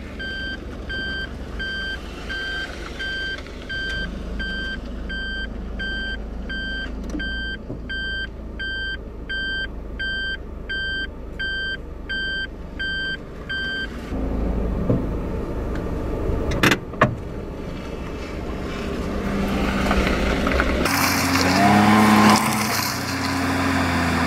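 A vehicle's reverse-gear warning beeper sounding a steady train of short high beeps, about three every two seconds, over a low idling engine hum; the beeping stops about 14 seconds in. Then a vehicle passes close by, with one sharp click, and near the end the engine sound turns quick and high-pitched from fourfold speed-up.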